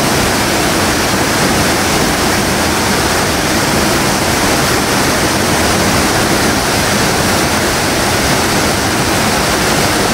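Water rushing steadily through a fish ladder's concrete slot and spilling over the weir into churning whitewater, loud and unbroken.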